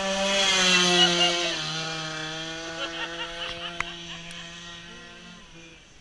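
Small two-stroke strimmer engine on a go-kart, revving high, then dropping to a lower steady pitch about a second and a half in and fading away.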